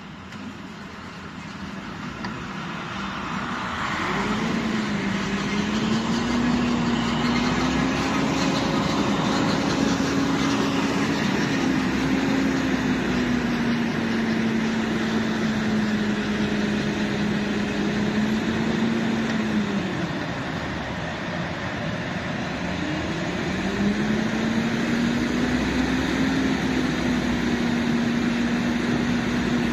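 ET22 electric freight locomotive and its train rolling through the station. It grows louder over the first few seconds, then holds a steady rumble with a wavering low hum that drops away briefly about twenty seconds in and returns.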